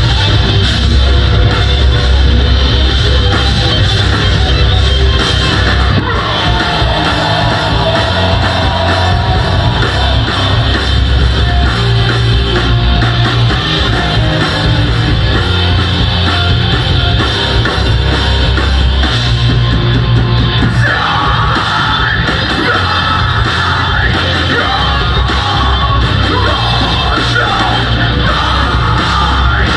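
Metalcore band playing live at full volume: distorted guitars, bass and drums with yelled, screamed vocals.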